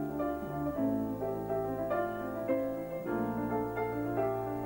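Piano playing a slow instrumental passage between sung lines: held chords and single melody notes over sustained bass notes.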